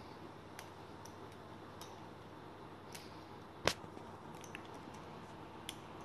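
Faint scattered clicks and ticks over a steady low hiss, with one sharp, louder click or knock a little past halfway.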